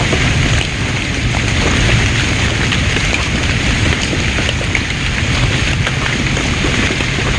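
Steady rain falling, with scattered ticks of drops and a heavy low rumble underneath.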